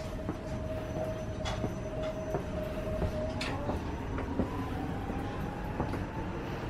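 Newag 14WE electric multiple unit pulling away, heard inside the passenger car: the traction-motor whine rises slowly in pitch from about four seconds in. A steady low rumble and occasional knocks run beneath it.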